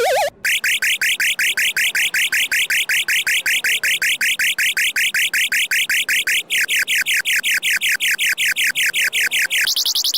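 Electronic alarm tone chirping rapidly and evenly, about five short beeps a second, changing to a higher, thinner repeating pattern near the end.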